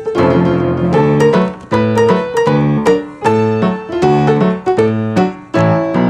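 Background piano music: a bright tune of repeated notes at a brisk, steady beat.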